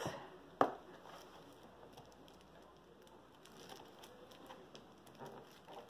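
Faint rustling and crinkling of packaging being handled and opened, with a sharp tap about half a second in.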